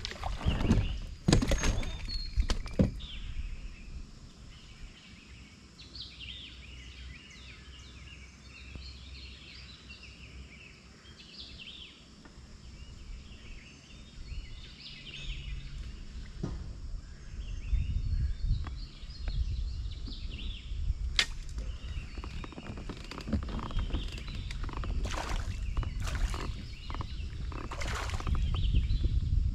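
A fishing rod cast swishes near the start, with a few sharp clicks and knocks from the rod and reel. Birds then sing on and off in the background, over a low rumble that grows in the second half.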